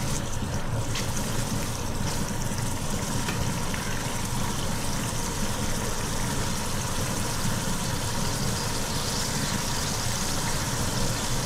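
Sliced onions sizzling steadily in hot oil in an aluminium pot as they soften and lose their rawness, with a low steady hum underneath.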